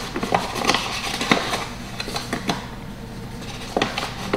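Measuring cup clinking and scraping as flour is scooped and measured, with a quick run of taps and scrapes in the first two and a half seconds and a few more taps near the end.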